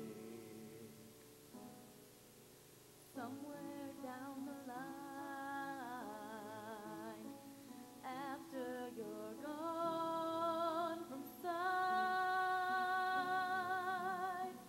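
Female soloist singing with vibrato over soft instrumental accompaniment. The accompaniment plays alone for about three seconds before she comes in, and she holds one long note near the end.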